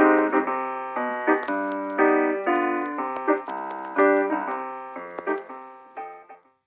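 A solo piano outro in recorded pop music, with the band dropped out. Single notes and chords ring and decay one after another, then fade away near the end.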